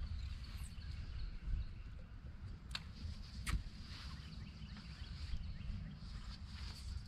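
Low, steady outdoor rumble of wind and water on an open bass boat, with two sharp clicks about three seconds in, under a second apart.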